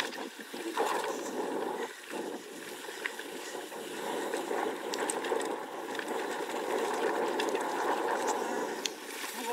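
Mountain bike riding down a dirt singletrack: a steady rush of tyre and wind noise, with scattered small clicks and rattles from the bike.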